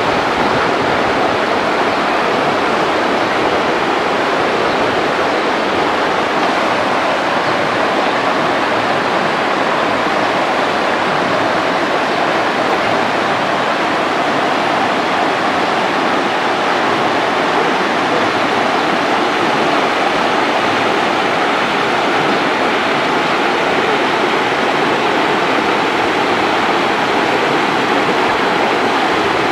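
The Rur river rushing steadily over its rocky bed, a loud, even rush of water that does not change.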